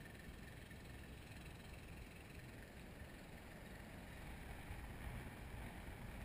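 Wind on the microphone of a harness-mounted camera under a parasail: a faint, steady low rumble that grows a little louder near the end.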